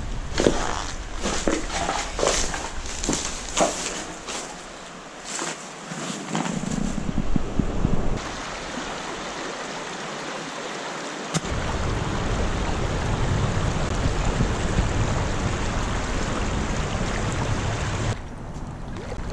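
Creek water running and splashing. Over the first several seconds there are many short sharp splashes and knocks, then a steady rush of water, with a low rumble that comes in suddenly partway through.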